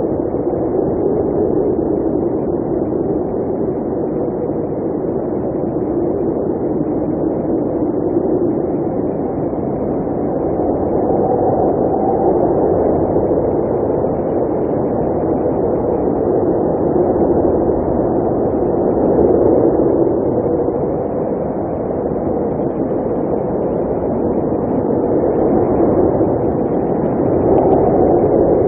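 Blizzard wind blowing steadily, a low howl that slowly swells and eases, growing a little louder near the end.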